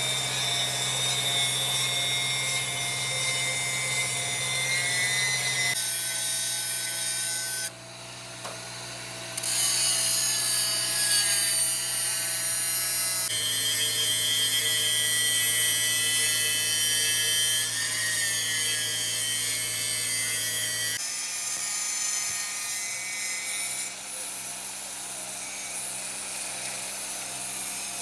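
Workshop power tool running steadily with a hum and a high whine, the sound changing abruptly several times as shots are cut together, with a short quieter stretch about eight seconds in.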